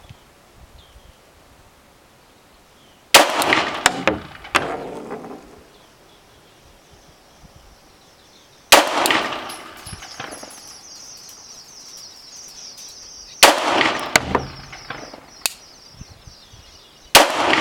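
Glock 19 9mm pistol firing four single shots several seconds apart, each sharp crack trailing off in echo.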